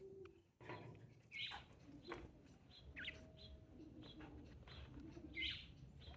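Sparrows chirping faintly: a scatter of short, separate chirps, about one every second or so.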